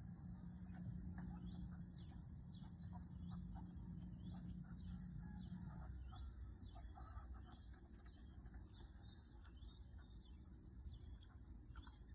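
Birds chirping faintly, with many short rising chirps repeated throughout. Under them a low steady hum fades out about six seconds in.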